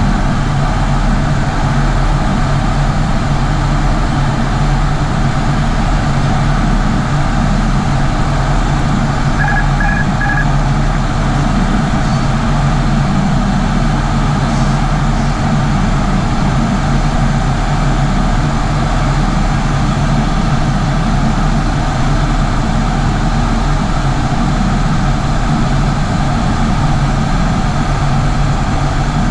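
Steady drone of the ATR 72-600's twin turboprop engines and propellers heard from inside the cockpit, with several steady low tones under a broad rushing hiss. About ten seconds in, three short high beeps sound.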